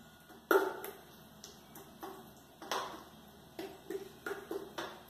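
Spatula knocking and scraping against the bottom of an electric grill pan while spreading sauce, a series of irregular sharp taps, the loudest about half a second in.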